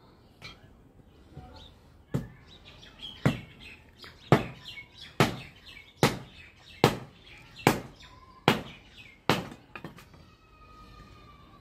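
Nine sharp knocks about a second apart, coming slightly faster toward the end, with birds chirping in the background.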